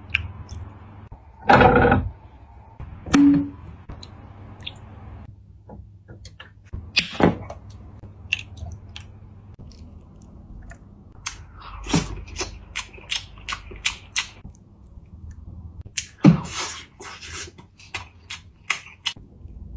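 Eating noises at a table: chewing with many scattered clicks and knocks of tableware, and a louder rustling noise about two seconds in.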